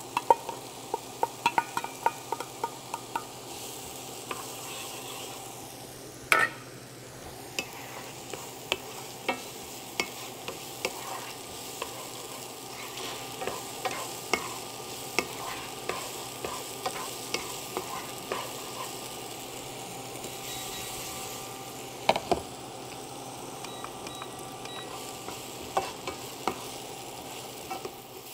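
Diced onions sizzling in hot sesame oil in a frying pan while a wooden spoon stirs them, tapping and scraping the pan in frequent sharp clicks over a steady hiss.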